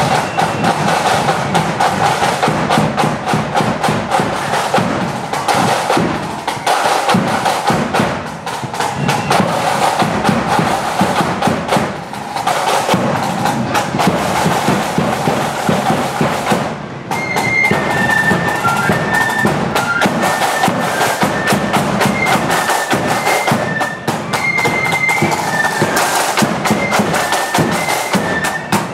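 Marching flute band playing. The drums beat a steady march throughout, and about two-thirds of the way in the flutes come in with a high, shrill melody over them.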